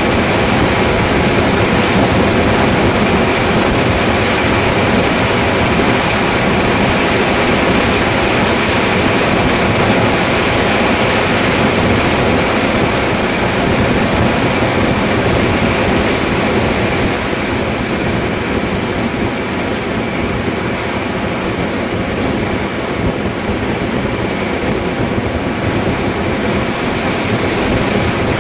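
Steady rush of wind and road noise from a vehicle travelling at highway speed, with a faint engine drone beneath it. The high hiss eases a little about two-thirds of the way through.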